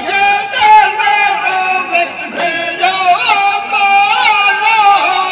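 A voice singing a sung poem (qaseed) in long, wavering melodic phrases with held, ornamented notes.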